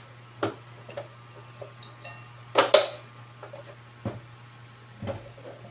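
Small tools and parts clinking and knocking on an electronics repair bench: about five sharp strikes, the loudest two close together about two and a half seconds in, over a steady low hum.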